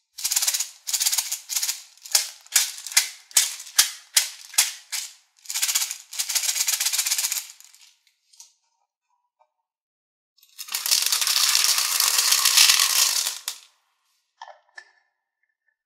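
Hard plastic beads rattling inside a small plastic toy baby bottle, shaken in quick strokes about three times a second and then in a continuous rattle. After a pause, a three-second rush of beads pouring out of the bottle into a plastic tray full of beads, ending in a few light clicks.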